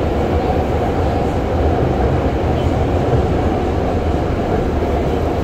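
Xiamen Metro Line 3 train running at a steady speed, heard from inside the car: a continuous, even rumble of wheels on rail and the car body.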